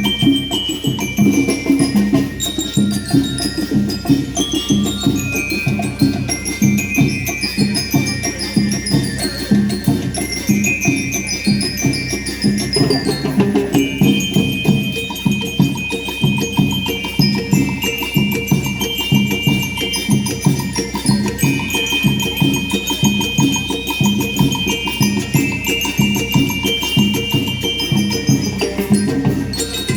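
School rhythm band playing: metal bell lyres carry a bright melody over a steady, driving beat of marching drums.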